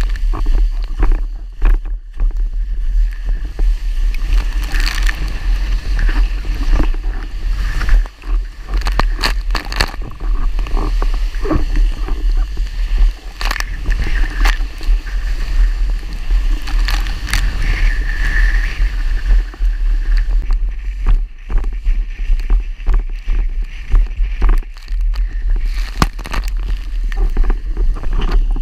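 Fanatic FreeWave windsurf board planing fast over chop: a steady rush of water and spray with irregular sharp slaps as the hull hits the waves, under a constant heavy rumble of wind on the microphone.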